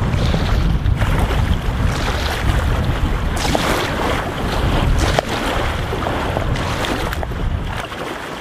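Water rushing past a rowing boat, with heavy wind buffeting the microphone and a few sharp knocks.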